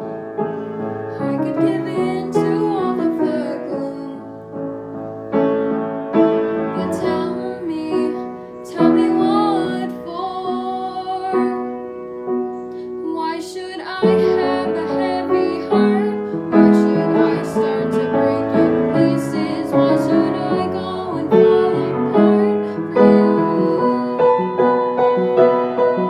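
A young girl singing a slow solo ballad with piano accompaniment.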